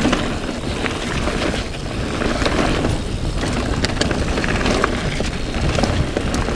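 Enduro mountain bike rattling and clattering over a rough dirt and stone singletrack at speed, with a dense rush of wind and tyre noise and many small knocks and clicks from the bike and trail.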